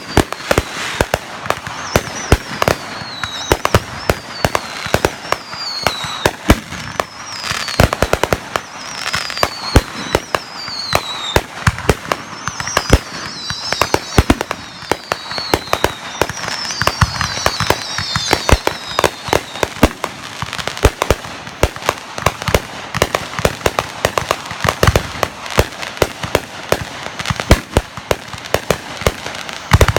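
Fireworks going off in a rapid, unbroken barrage of bangs and crackles. Through the first two-thirds, whistling fireworks add many short falling whistles one after another.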